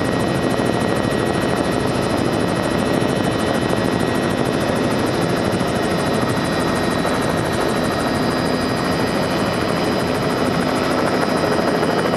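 Helicopter's engine and rotor running steadily, heard from inside the cabin as it descends to land. A steady high whine sits over a dense rotor noise with a fast beat.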